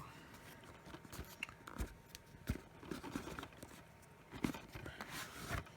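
A Blu-ray box set being handled and opened: scattered light taps, clicks and rustles of cardboard and plastic packaging.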